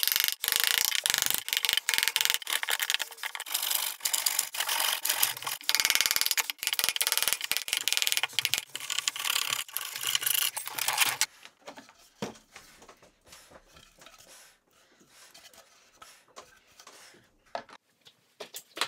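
Hand tools cutting into maple: rapid, continuous scraping and rasping strokes with sharp clicks as the handle recesses are carved. About eleven seconds in it drops to faint clicks and small knocks.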